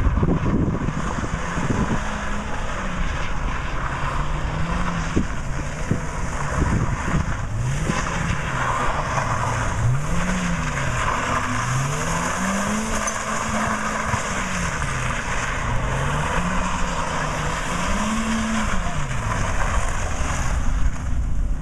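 BMW 318ti Compact with a welded differential drifting through a cone course, its four-cylinder engine revving up and falling back again and again, about every two seconds, over steady wind and tyre noise.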